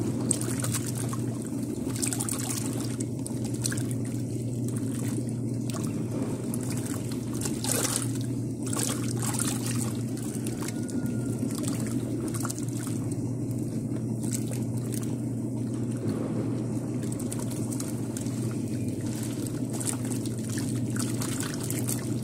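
Dako 4 kg tanquinho washing clothes: the agitator disc churns soapy water and laundry in the tub, giving steady sloshing and splashing over the motor's low, even hum.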